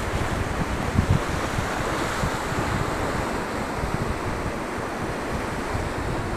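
Ocean surf breaking and washing over the shallows, a steady rush of water, with wind buffeting the microphone in low gusts, hardest about a second in.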